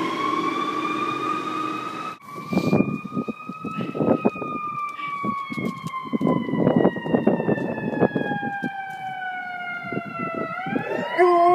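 Ambulance siren wailing: its pitch rises, falls slowly for several seconds, then climbs again. Near the end a golden retriever starts howling along with it in a steady, lower tone.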